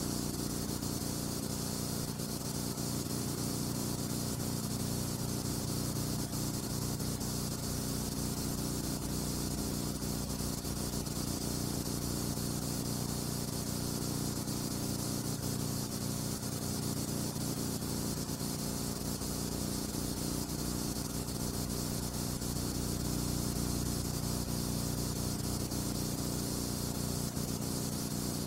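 Steady hiss with a low electrical hum underneath, unchanging throughout: the bare noise floor of a silent film's transfer, with no sound of its own.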